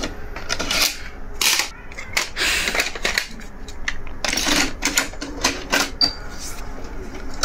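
Irregular clicks and clunks from a Pioneer car CD/cassette head unit as its front-panel buttons are pressed and a cassette tape is handled in and pushed into the tape slot.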